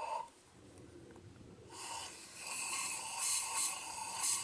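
Air blown by mouth through a blow tube into a drilled bolt hole in concrete, clearing out the drilling dust before the anchor goes in. It comes in about two seconds in as a hiss that swells in several strong puffs.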